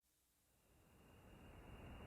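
Near silence, with a faint, even background noise slowly fading in.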